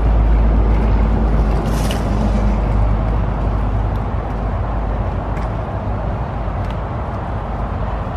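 Hard wheels of a suitcase rolling over concrete and asphalt, a steady rumble that fades as the case is pulled away. A short sharp clatter about two seconds in fits the case dropping off the walkway kerb into the car park.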